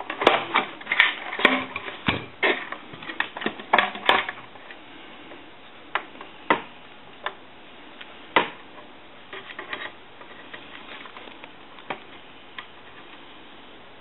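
Small plastic and metal telephone parts being handled and fitted during reassembly: a busy run of quick clicks and knocks for the first four seconds or so, then single sharp clicks every second or two.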